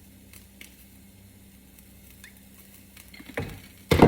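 Kitchen handling while a burger is assembled: scattered faint light taps, then a soft knock about three and a half seconds in and a louder clunk right at the end.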